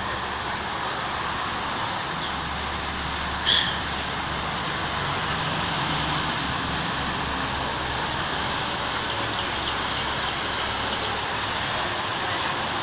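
Steady hum of road traffic, with one short sharp sound about three and a half seconds in and a quick run of high chirps near the end.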